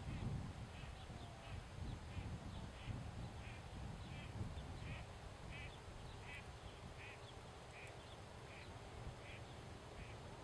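Short animal calls repeated evenly, about three every two seconds, over a low rumble that is strongest in the first few seconds.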